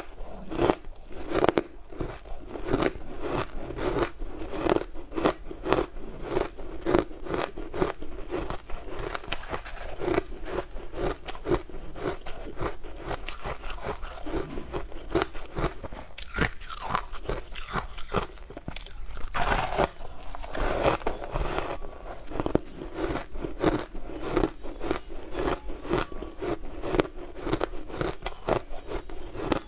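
Blue-tinted crushed ice being bitten and chewed: a steady run of sharp crunches, about two or three a second.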